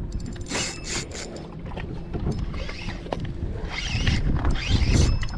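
Wind and choppy water slapping against a small boat's hull, with scattered clicks and rubbing from hands working a spinning reel and rod.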